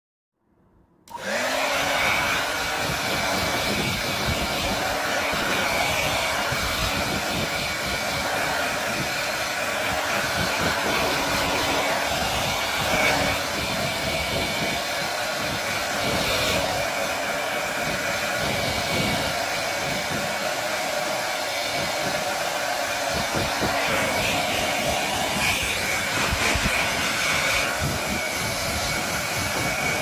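Hair dryer switched on about a second in, its motor rising to speed, then running steadily: a loud rush of blown air with a thin steady high tone riding on it.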